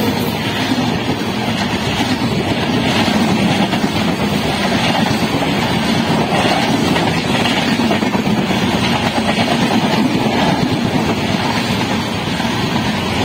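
LHB passenger coaches of an express train passing at speed close by: a loud, steady rush of wheels on rails.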